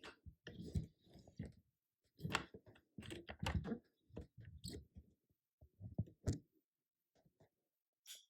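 Ryobi 18-gauge nail gun driving 25 mm nails into a thin wooden stopper: a string of short, sharp clacks and clicks spaced irregularly, with small gaps between them.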